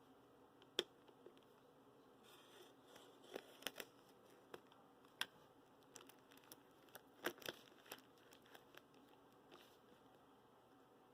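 Quiet handling of packaging during an unboxing: scattered sharp clicks and short crinkling rustles, the loudest click about a second in and a few more around five and seven seconds.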